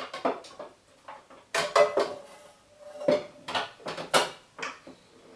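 Pots, pans and plastic containers knocking and clattering against each other as they are moved about in a kitchen drawer: a quick series of knocks and clinks, a few of them ringing briefly.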